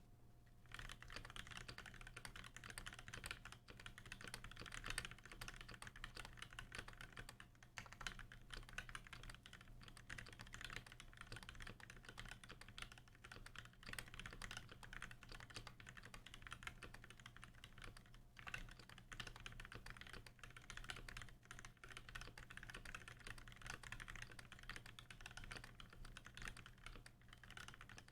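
Continuous fast typing on a custom mechanical keyboard with lubed Gateron Black Ink linear switches, fitted with switch films, in a brass plate, under GMK keycaps. The keystrokes run together with only a short lull about two-thirds of the way through.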